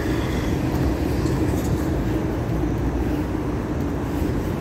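Steady traffic noise from cars and heavy trucks passing on a busy multi-lane road, with a low rumble.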